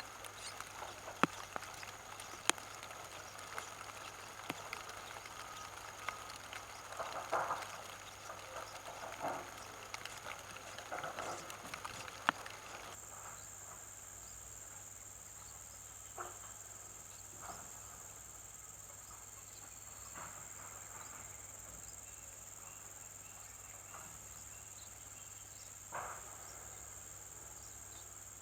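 Insects trilling in a steady high continuous tone, which starts abruptly about halfway through. Before that come scattered clicks and short chirps.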